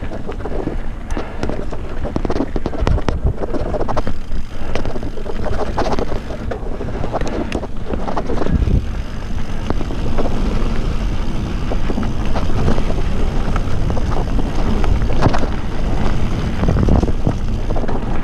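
Wind buffeting the microphone of a camera riding on a mountain bike, with the bike knocking and rattling over bumps in a dirt trail.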